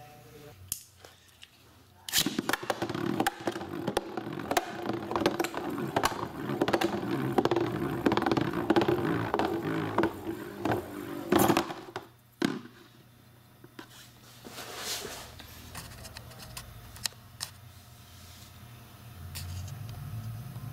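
Dragoon MSUV spinning top launched into a plastic Beyblade stadium about two seconds in, rattling and scraping across the floor with many sharp clicks. After about twelve seconds it settles into a quieter, steady spin.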